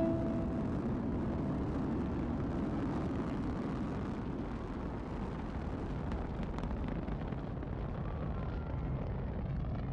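Space Shuttle launch roar: a steady, low, crackling rumble from the rocket motors as the vehicle climbs away, easing slightly over the seconds.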